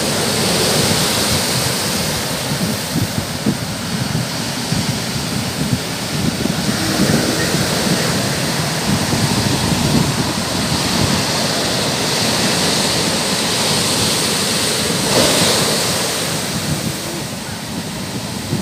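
Ocean surf breaking and washing up a sandy beach, a steady rushing wash that swells once about fifteen seconds in, with wind buffeting the microphone.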